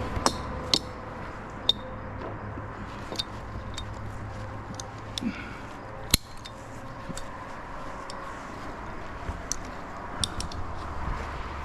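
A steady low engine-like hum with scattered sharp clicks and knocks, the sharpest about six seconds in.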